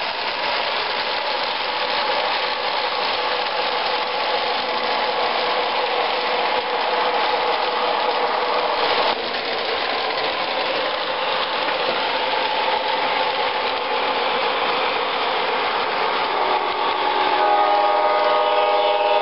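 MTH O-gauge model train running on three-rail track, its wheels and motor making a steady rolling rumble. Near the end, the locomotive's onboard sound system sounds a horn for a couple of seconds.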